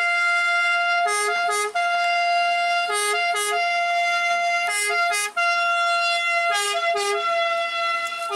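Italian ambulance's two-tone siren: a held high note broken about every two seconds by a pair of short lower notes.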